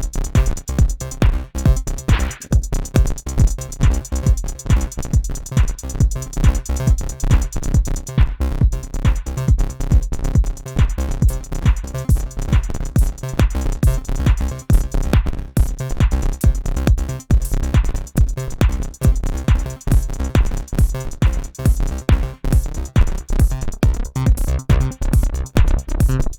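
Electronic music jam from an Akai MPC One sampler and a Korg microKORG synthesizer: a steady drum-machine beat with heavy bass under synth parts.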